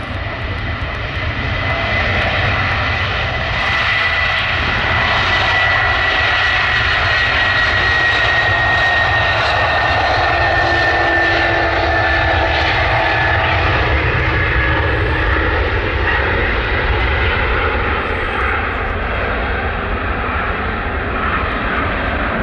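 Antonov An-124's four D-18T turbofans at takeoff power as it rolls, lifts off and climbs away: loud, steady engine noise with a deep rumble underneath and a high whine that slowly falls in pitch as the aircraft passes.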